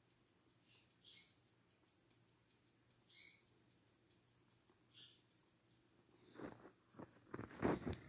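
1917 Waltham 17-jewel pocket watch running, ticking faintly and evenly at about five ticks a second. Some louder, lower sounds come in near the end.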